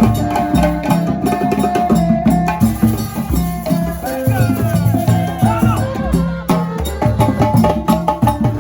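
Traditional percussion music: drums beating a steady, fast rhythm under a sustained melodic line, with a few gliding pitched notes in the middle.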